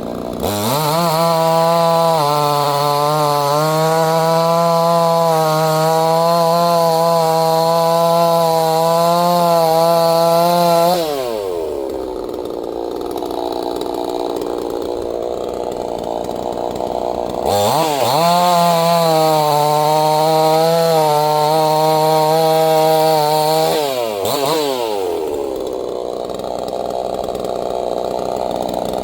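Neotec NCS6800 68cc two-stroke chainsaw running: revved up and held at high speed for about ten seconds, dropped back to idle, revved and held again for about six seconds, then back to idle with a short blip near the end.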